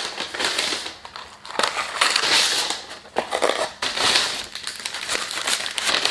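Paper food packaging being crinkled and rustled in repeated bursts as takeout is unpacked.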